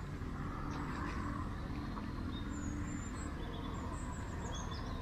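Faint, high bird chirps scattered over a steady low rumble.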